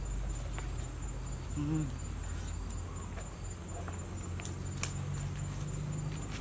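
Steady high insect trill, like crickets, under a few light clicks and rustles from watermelons and vines being handled on stony ground. A short hummed voice sound comes nearly two seconds in.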